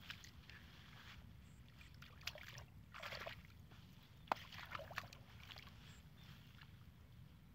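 Hands scooping and squelching in wet mud and shallow water, a few short splashy scrapes between about two and five seconds in, with one sharp tap in the middle.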